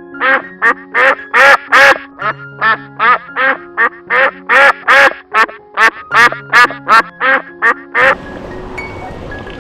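Duck quacking rapidly, about twenty loud quacks at two to three a second, stopping about eight seconds in, over a steady background music bed.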